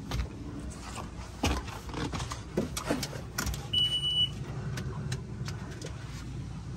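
Scattered clicks and knocks of handling at a boat's helm, then a short, high, steady beep lasting about half a second a little before the four-second mark as the outboard's ignition key is switched on.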